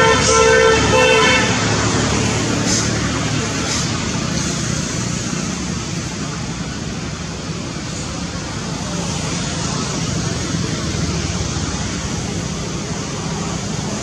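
A vehicle horn sounds one long steady blast that ends about a second in, over a steady rumble of road traffic that carries on throughout.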